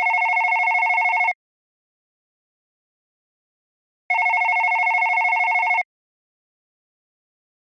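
Modern landline telephone ringing with an electronic ringtone: a fast-warbling ring cuts off about a second in, and a second ring of nearly two seconds sounds about four seconds in, with silence between the rings.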